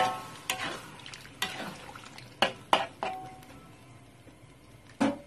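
Spatula stirring chicken wings in curry sauce in a wok, knocking and scraping against the pan: a series of sharp clanks with short ringing, the loudest at the start, a pair about two and a half seconds in, and one more near the end.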